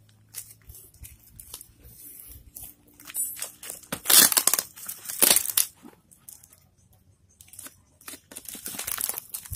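Cardboard and brown packing tape being torn open by hand: a series of short rips and crinkling rustles, loudest about halfway through, with a brief lull before more tearing near the end.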